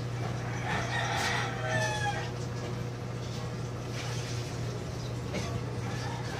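A rooster crowing once, about a second in: one call of about a second and a half that falls in pitch at the end, over a steady low hum.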